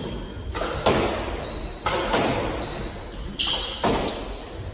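Doubles squash rally: the rubber squash ball cracking off racquets and the court walls, a sharp hit about every second, each ringing briefly in the enclosed court, with short high squeaks of the players' shoes on the hardwood floor between hits.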